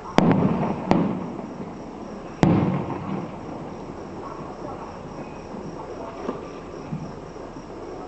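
Fireworks going off: two loud bangs, the first followed by a smaller one, in the first two and a half seconds, each dying away in a rumbling echo, then a couple of fainter pops later on.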